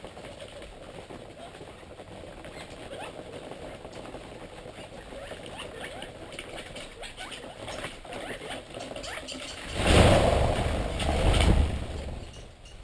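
A quail flock feeding with soft, scattered chattering calls. About ten seconds in, a loud whir of wings lasts about two seconds as the flock flushes in alarm.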